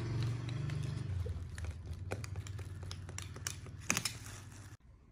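Clear plastic wrapping crinkling and rustling, with scattered sharp clicks, as hands pull and tear it open around a bale of clothing. A low hum runs underneath and fades, and the sound cuts off abruptly near the end.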